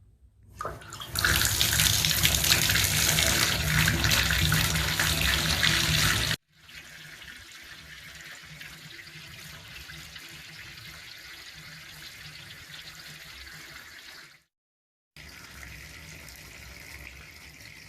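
Hot water tap running hard into a drain to flush out caustic soda drain cleaner. The water starts about a second in and runs loudly for about five seconds, then drops suddenly to a quieter steady flow, breaks off briefly near the end and carries on.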